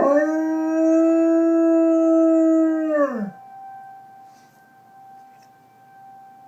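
German Shepherd dog howling: one long note that rises at the start, holds steady for about three seconds, then drops away, with a steady faint tone underneath.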